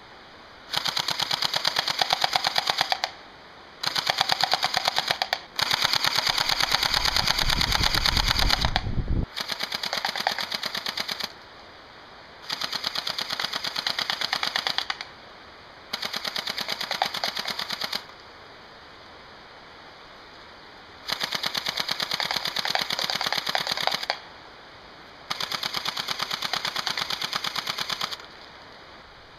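Cyma CM022 AK-47 airsoft electric gun (AEG) with a plastic gearbox firing on full auto: about eight bursts of two to four seconds each, a rapid rattle of the gearbox cycling, with short pauses between them.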